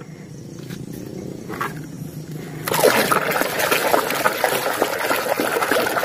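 Water splashing and sloshing as a plastic toy car is scrubbed by hand in a tub of muddy, soapy water. It starts suddenly about two and a half seconds in, after a quieter stretch.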